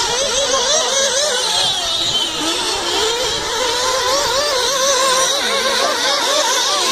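Several 1/8-scale nitro RC buggy engines running at high revs, their pitches rising and falling over one another as a pack of cars comes through, with a high hiss over the top.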